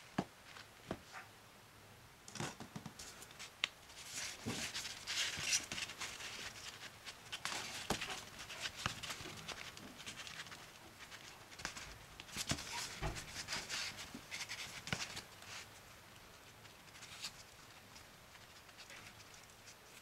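A slice of soft white bread being pressed into a plastic bear-shaped mould and peeled away by fingers: a few light clicks at the start, then irregular soft rustling and crackling of the crumb and crust that dies away near the end.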